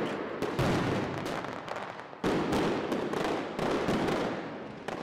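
Fireworks going off in dense crackling volleys, with fresh loud bangs about half a second in, just after two seconds and again at about three and a half seconds.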